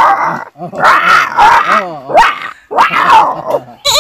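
A man imitating a dog with his voice: a run of barks and growls that rise and fall in pitch.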